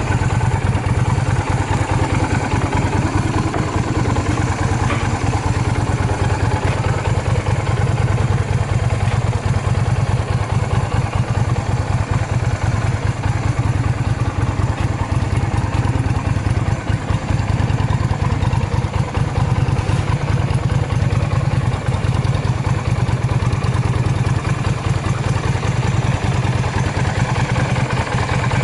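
Yamaha Drag Star 250's air-cooled V-twin engine idling steadily. It sounds clean, with no abnormal noises.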